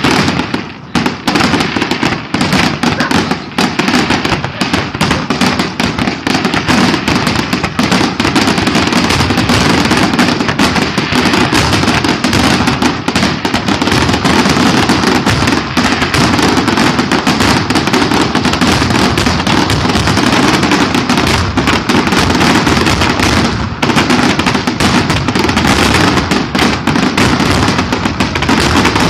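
Aerial fireworks going off in a rapid, continuous barrage, the bangs overlapping so densely that there is hardly a gap between them.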